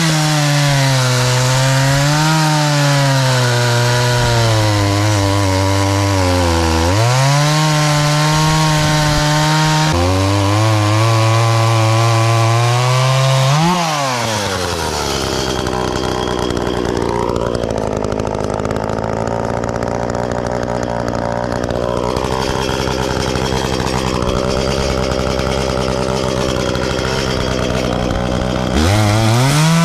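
Gas chainsaw cutting through a log at high revs, its pitch sagging and recovering as the chain bites into the wood. About halfway through it drops to a lower, quieter running for most of the rest.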